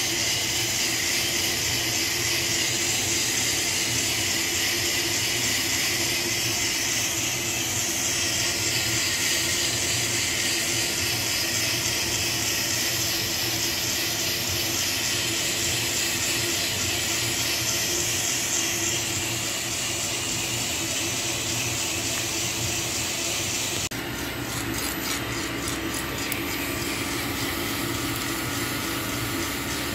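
Small drum coffee roaster running mid-roast: a steady hiss over a low hum from the burner, fan and turning drum. About 24 s in the sound changes abruptly and fine rapid clicking comes through, typical of beans tumbling in the drum.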